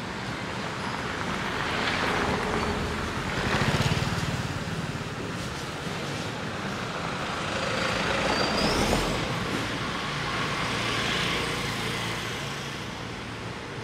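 Road traffic: several vehicles pass close by one after another, each swelling and fading over a couple of seconds, the loudest about four seconds in.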